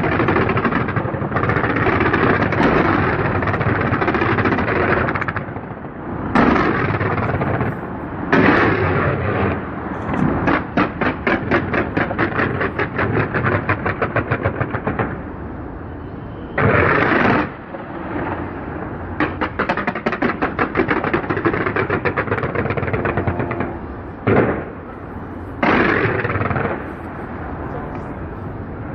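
Fireworks exploding over a steady rumble of blasts. Single loud bursts go off every few seconds, and two long runs of rapid crackling pops, about five a second, come about ten seconds in and again later.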